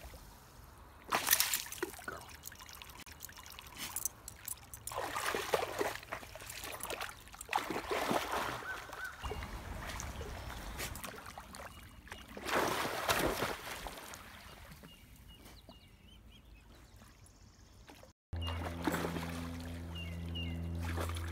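A dog splashing through shallow pond water in repeated bursts as it plunges its head and paws after tadpoles. Near the end a steady low hum comes in under more splashing.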